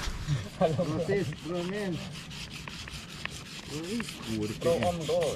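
A snap-off utility-knife blade rubbed back and forth on a wet whetstone, a quick scraping rhythm of several strokes a second.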